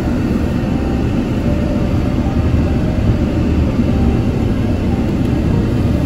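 Steady road and engine rumble inside a car's cabin while driving on a snowy, icy road.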